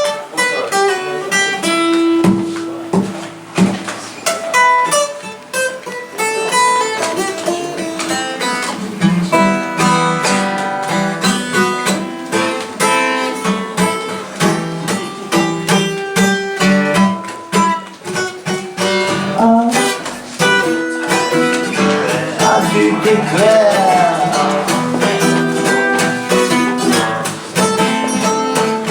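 Acoustic guitars playing an instrumental break of a live song, strummed chords under a run of quickly changing picked notes.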